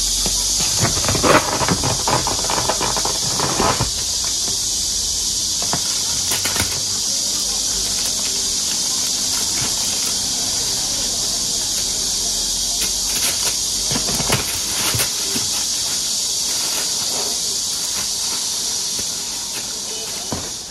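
A steady high hiss throughout, with bursts of plastic bin-bag crinkling as kittens scramble and tussle on it, most around one to four seconds in and again about thirteen to fifteen seconds in.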